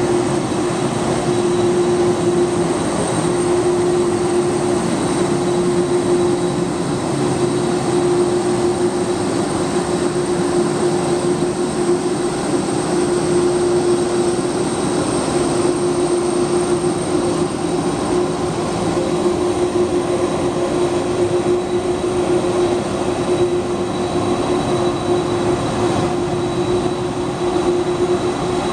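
Jet airliner's engines running at idle as it taxis: a steady rush of noise with a constant hum and a faint high whine.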